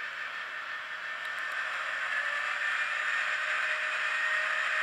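Sound decoder in an N gauge Graham Farish Class 70 model diesel locomotive, playing the diesel engine sound through a tiny microcube speaker: a thin, steady engine drone with a high tone through it and no bass, growing louder about two seconds in.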